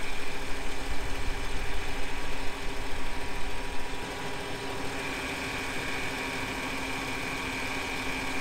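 Ford F-150's 4.9-litre (300 cu in) straight-six idling steadily, warming up after being started on a freshly replaced head gasket. A thin steady high whine joins in about five seconds in.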